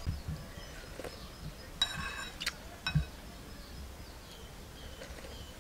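Metal spoon clinking against a ceramic bowl, a few light clinks about two to three seconds in, the first one ringing briefly. Faint bird chirps in the background.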